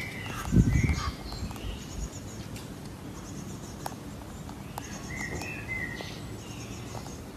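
Small birds chirping outdoors in short repeated calls. A low thump comes about half a second in.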